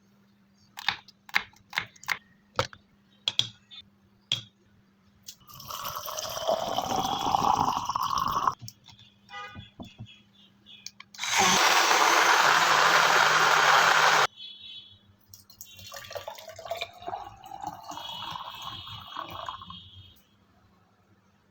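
A run of sharp knocks, then liquid poured into a container, its pitch rising as it fills. An electric blender then runs steadily for about three seconds and stops suddenly, followed by more liquid poured, again rising in pitch as the container fills.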